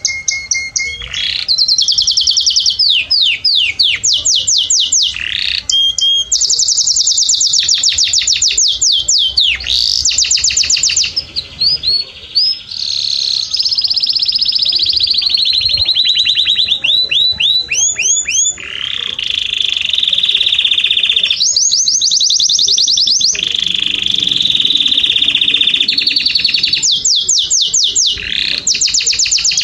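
Domestic canary singing a long, loud song of fast trills: runs of rapidly repeated notes sweeping up and down, alternating with steadier rolling passages.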